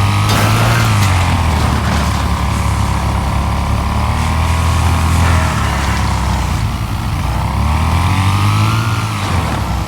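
Lawnmower engine running continuously, with a whine above the engine note that rises and falls in pitch a few times as the engine speed changes.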